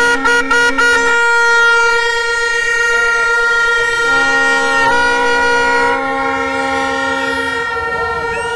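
Plastic stadium horns (vuvuzela-type) blown by a crowd, several steady drones overlapping. The first second is broken into short toots, and a lower-pitched horn joins about four seconds in and stops near the end.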